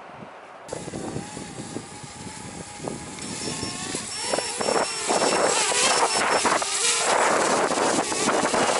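Connex Falcore racing quadcopter's motors running with a buzzing whine that shifts in pitch, starting suddenly under a second in and growing louder, with gusty wind buffeting the microphone.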